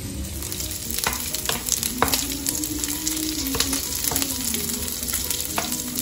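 Diced leftover pork sizzling and crackling in hot oil in a nonstick frying pan while a wooden spatula stirs it, clicking against the pan several times.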